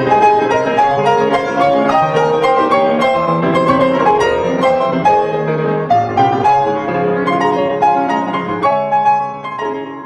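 Solo piano background music, a piano cover, playing a run of notes that grows quieter near the end.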